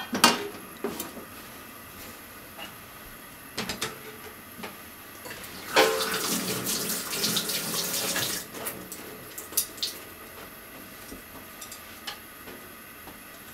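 Oil heating in a frying pan, crackling and sputtering. The crackling thickens into a dense burst for about two and a half seconds in the middle, with a few sharp clicks at the start.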